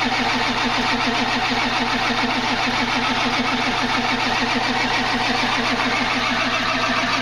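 Starter cranking a Ford Power Stroke diesel in a fast, even rhythm; the engine turns over but does not catch.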